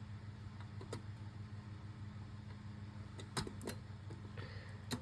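A few sharp clicks and taps from handling a fire alarm panel over a steady low electrical hum. Two clicks come close together about three and a half seconds in, and another comes near the end.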